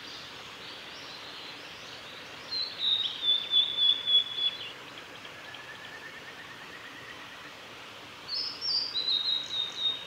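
Male blue-and-white flycatcher singing: two high song phrases, the first starting about two and a half seconds in and the second near the end, each a quick run of notes ending on a held level note.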